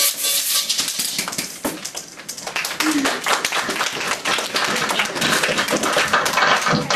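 A group of people clapping: steady applause from many hands, dipping briefly about two seconds in and then picking up again.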